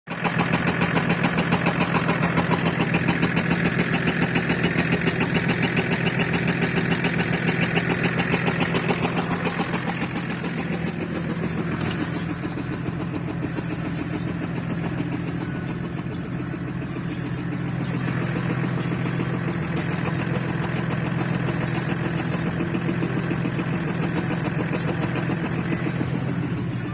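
BMW M51 straight-six turbodiesel running with a fast rhythmic knock, which the owner puts down to the flywheel. The knocking pulse is strong for the first nine seconds or so, then the engine runs quieter and smoother.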